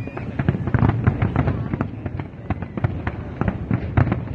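Fireworks display: a rapid, irregular run of overlapping bangs and crackles over a deep booming rumble. The heaviest bursts come about a second in and again near four seconds.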